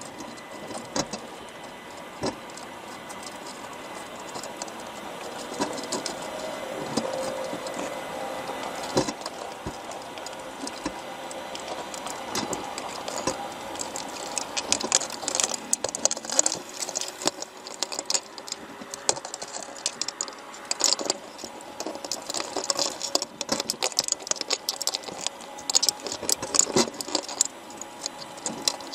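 Dense, irregular underwater clicking and crackling, thickening from about halfway through.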